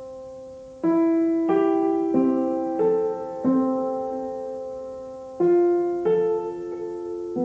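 Background music: slow solo piano, single notes and chords struck one after another and left to ring and fade.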